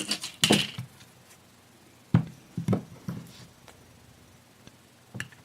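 Small hand tools and parts being handled on a workbench: a handful of short, sharp clicks and knocks at uneven intervals, with quiet between them.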